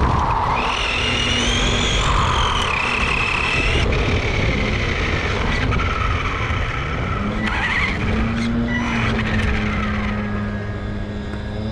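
Tamiya FF01 radio-control touring car's tyres scrubbing and squealing on asphalt as it is driven through turns, the high squeal bending up and down in pitch, over the whine of its electric motor.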